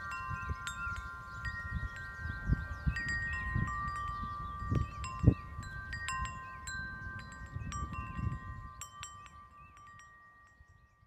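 Large metal tube wind chimes ringing in the breeze, struck at irregular moments so their long tones overlap, with gusts of wind rumbling on the microphone. The sound fades out near the end.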